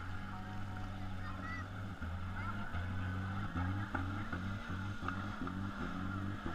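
Music with a bass line stepping from note to note about every half second, over a haze of background noise.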